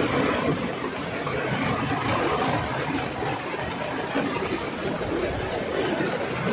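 Heavy rain falling on a polycarbonate greenhouse roof and walls, heard from inside as a steady, dense hiss.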